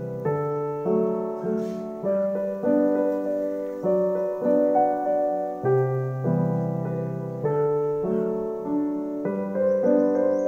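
Background music: a gentle piano or keyboard piece, slow chords and melody notes struck about once a second in a repeating pattern.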